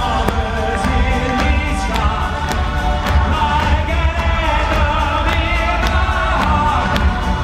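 Live amplified pop music with singing over a band, a steady drum beat about two hits a second and heavy bass, heard through the arena's sound system from the stands.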